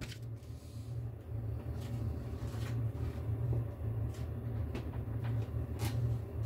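A steady low hum with a few faint knocks and taps scattered through it.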